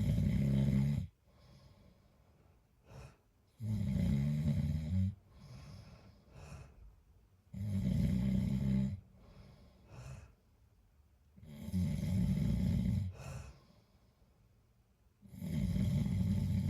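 A man snoring: loud, rattling snores about every four seconds, each lasting about a second, with soft breathing between them.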